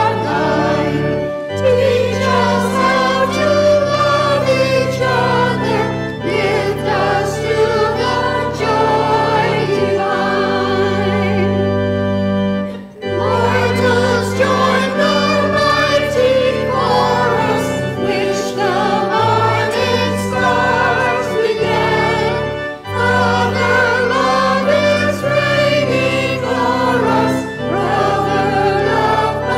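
Church choir of mixed men's and women's voices singing a hymn over sustained low accompanying notes, with short breaks between phrases about 13 and 23 seconds in.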